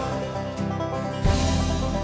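Live band playing an instrumental passage of a folk-rock song, with acoustic guitar strumming over sustained low notes. A little over a second in the band comes in with a loud, full hit.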